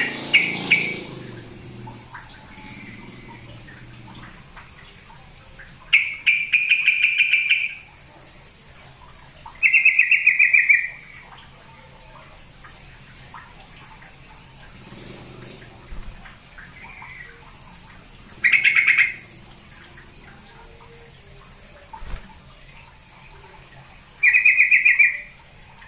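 Yellow-vented bulbul (trucuk) calling in short bursts of fast, bubbly chattering notes, about five bursts each lasting around a second, spaced several seconds apart.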